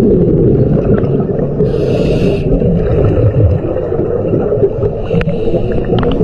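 Underwater rumble and bubbling around a scuba diver, with a short hiss about two seconds in.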